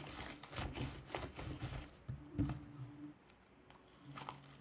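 Fluffy foam-filled slime being squished and kneaded by hand: faint, irregular little squelches and crackles, easing off for a moment a little after the middle.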